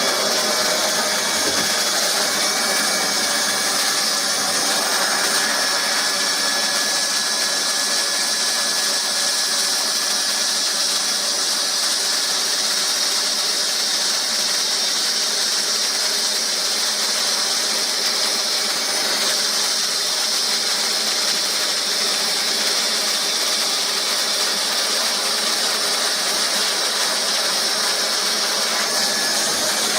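Hot-air plastic welding gun blowing steadily, a constant airy hiss from its fan and heater while the plastic filter box is welded.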